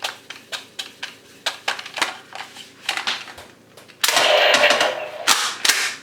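Irregular sharp clicks, a few each second, then about a second of dense rustling noise and a few more clicks.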